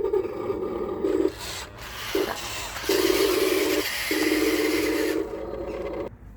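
Huina 1593 RC excavator's electric motors whining in several stop-start bursts as the machine works, falling quiet near the end. Through the middle comes a gritty scraping, the bucket digging through sand and soil.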